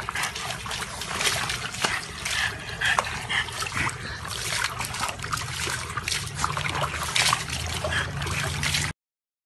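Water splashing and trickling, with many small irregular clicks and splashes; it cuts off abruptly near the end.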